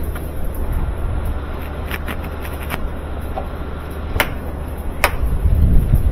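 Washing machine parts being handled and fitted together: about five sharp clicks and knocks, with a duller thump near the end, over a steady low hum.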